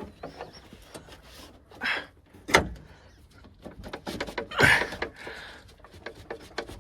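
Hand work inside a pickup truck's door: scattered light clicks and rattles of metal parts, with two louder knocks about two seconds apart.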